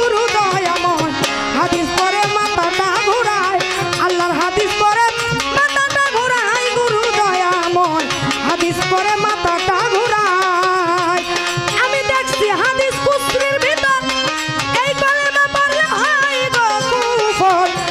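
A woman singing a Bengali baul song over hand-drum percussion and melodic instrumental accompaniment; her voice slides up and down in long held phrases.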